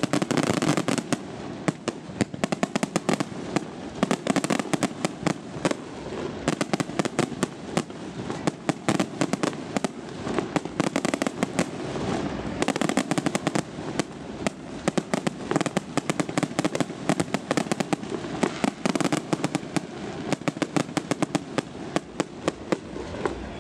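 Aerial fireworks display: shells bursting overhead in a dense, unbroken run of quick sharp reports that overlap one another.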